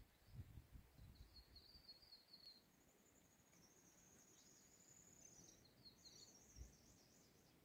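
Faint bird calls over a near-silent background: a short warbling phrase, then a longer high call and a brief trill.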